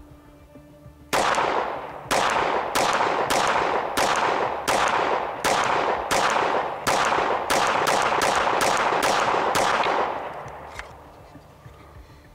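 Glock 19X 9mm pistol fired in a string of about seventeen shots, roughly one every half second or so at first and quicker in the last couple of seconds. Each shot is followed by a short echo.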